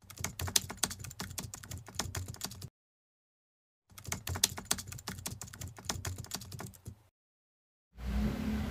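Typing sound effect: rapid key clicks in two bursts of about three seconds each, a second of silence between them. Music starts near the end.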